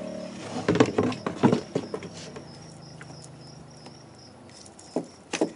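Light clicks, knocks and rattles of hands and tools working on an ATV carburetor and its fuel line, with a cluster about a second in and two sharper knocks near the end.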